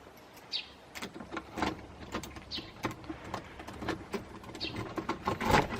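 A bird chirping three times, each chirp short and falling, about two seconds apart, over scattered light clicks and knocks that bunch up and grow louder near the end.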